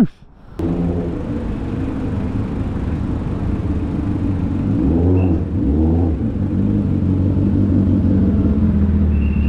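Motorcycle engine running steadily close by, swelling twice, about five and six seconds in.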